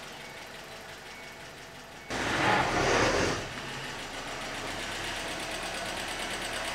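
BMW E46 Compact's N42 four-cylinder petrol engine starting about two seconds in, with a loud rev flare that drops after about a second and a half into a steady low-speed run.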